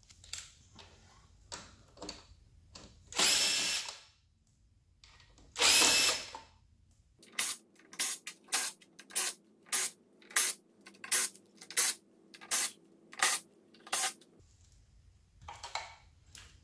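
Cordless drill/driver backing out screws: two longer runs of the motor, then a quick string of short, evenly spaced bursts, about two or three a second, lasting some seven seconds. Small handling clicks come before and after.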